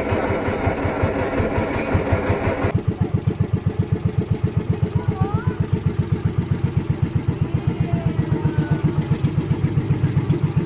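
Engine of a motorized outrigger boat (bangka) running at low speed with an even, fast putter. About three seconds in, the sound abruptly turns duller, leaving the engine's beat clearest.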